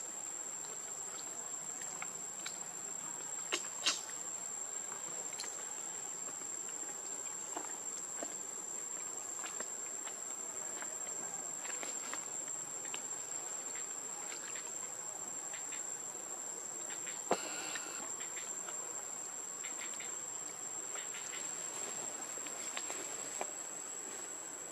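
A single insect droning a steady, unbroken high-pitched tone, with a few faint short clicks and taps scattered through, one a little after three seconds in, another about two thirds of the way through.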